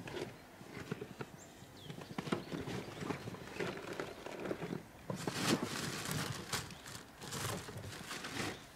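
Small irregular clicks and knocks of a fishing tackle box being opened and rummaged through, with a louder burst of rattling and rustling about five seconds in.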